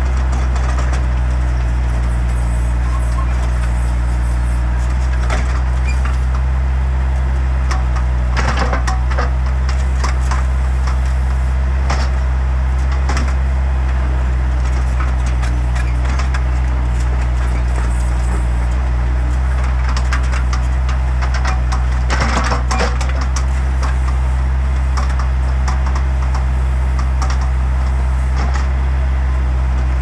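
Bobcat S175 skid-steer loader's diesel engine running steadily under hydraulic load as its backhoe attachment digs in soil. Scattered knocks and scrapes of the bucket in dirt and stones, with a louder clatter about a third of the way in and again past two-thirds of the way through.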